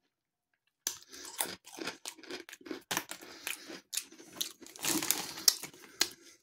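Chewing of hard, dry lattice-shaped potato snacks, a rapid run of sharp crunches close to the microphone that starts about a second in.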